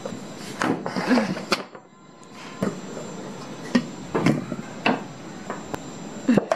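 Aluminium tube cake pan and wire cooling rack knocking and clattering as a large sponge cake is turned out of the pan: a string of separate sharp knocks with some rubbing between them.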